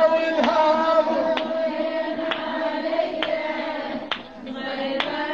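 A woman chanting a mourning lament (latmiya), holding one long, slightly wavering note that breaks briefly about four seconds in. Under it runs a sharp beat, about one a second, like hands striking.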